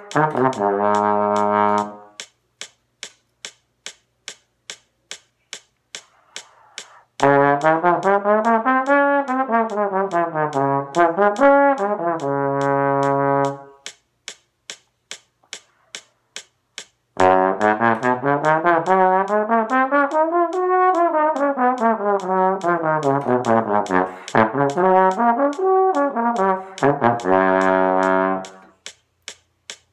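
Trombone playing three phrases of notes that climb and fall in steps, with pauses between them. A steady click about twice a second runs underneath, in the manner of a metronome keeping time.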